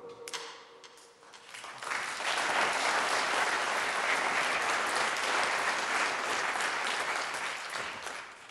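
Audience applauding: a few scattered claps at first, swelling into full, steady applause after about two seconds and dying away near the end.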